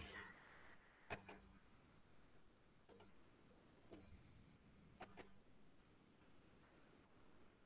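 Faint computer mouse clicks against near silence: about six sharp clicks over several seconds, some in quick pairs.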